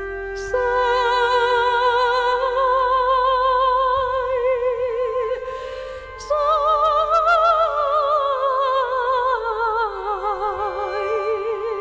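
Improvised female singing in long held notes with wide vibrato over a bowed bazantar drone. A second phrase comes in higher about six seconds in and slides down near the end.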